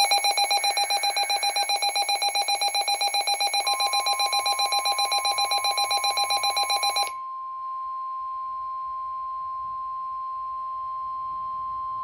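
Two NOAA weather radios going off for a severe thunderstorm warning. One gives a loud, rapidly pulsing electronic alarm, about seven pulses a second, which stops about seven seconds in. The steady single-pitch NOAA warning alarm tone joins about three and a half seconds in and carries on alone after the pulsing stops.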